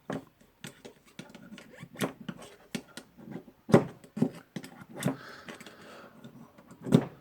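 Pliers working a spring ring down into its groove on a rotary hammer's tool holder: scattered metal clicks and taps, with a few sharper knocks and a brief scrape.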